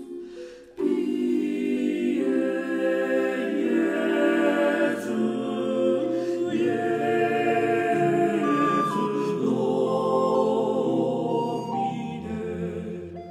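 Background music of a choir singing, long held notes in harmony. It comes in strongly about a second in and fades near the end.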